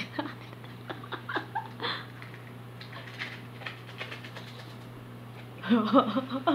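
Scattered taps and knocks of an opened metal Spam can being shaken and tapped upside down to slide the meat loaf out onto a plate. Laughter near the end.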